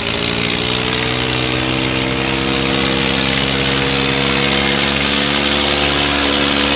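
Diesel tractor engines of a Swaraj 855 and a Sonalika held at full throttle under heavy load, pulling against each other in a tractor tug-of-war. A loud, steady drone that creeps slowly up in pitch as the engines strain.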